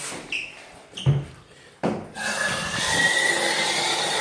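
A few short knocks, then a tap is turned on about two seconds in and water runs steadily with a faint whistle.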